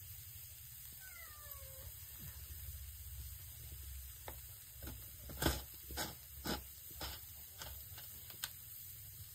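A cat meows once, a short call falling in pitch about a second in. Then comes a string of sharp knocks, about two a second, the loudest about halfway through.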